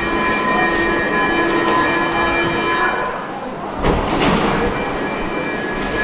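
Metro train standing at an underground platform with its doors open, giving a steady whine of several high tones. The whine drops away about three seconds in, a short burst of noise comes about a second later, and the whine returns near the end.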